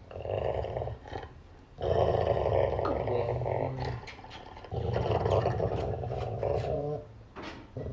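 A dog growling in several long, rough stretches, each about two seconds, with short pauses between them.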